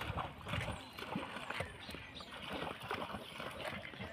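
Monkeys swimming and splashing in shallow water: an irregular run of small splashes and paddling sounds.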